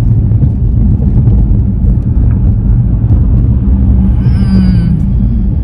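Steady low road and engine rumble of a car being driven, heard inside the cabin. About four seconds in, a brief high wavering pitched sound rises over it.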